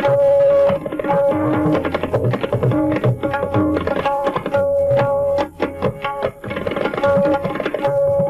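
Tabla played in a fast, dense passage: quick ringing strokes on the tuned right-hand drum (dayan) mixed with deep bass strokes on the left-hand drum (bayan). There is a brief softer stretch about five and a half seconds in.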